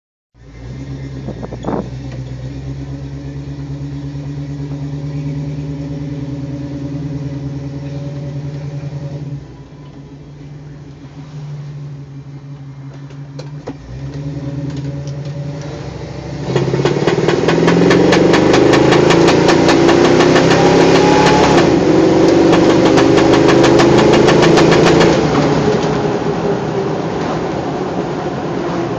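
International 345 V8 in a 1974 Scout II running steadily, then at wide open throttle, about halfway through, revving up louder with a rapid popping that lasts several seconds before easing off. The owner has traced the popping to the intake; it comes only under heavy throttle and changes pitch with throttle.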